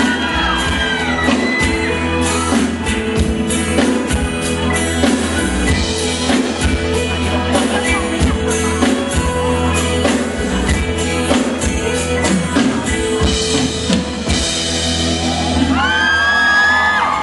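A band's song with drum kit and steady bass, a singing voice heard briefly at the start and coming back in near the end.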